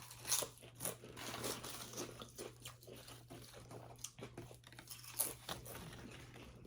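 People chewing and biting into a sub sandwich and chips, with irregular crunches and smacking sounds of eating.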